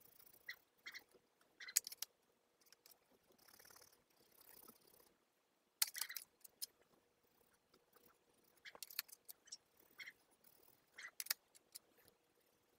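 Faint, scattered clicks and short scratchy rustles of drawing tools and hands working on sketchbook paper, with a softer stretch of scratching about four seconds in.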